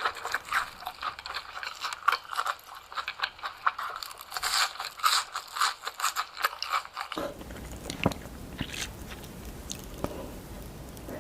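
Close-up crunching and chewing of fried cheese sticks, a dense run of crisp crunches. About seven seconds in it cuts abruptly to quieter, sparser chewing clicks over a steady low background noise.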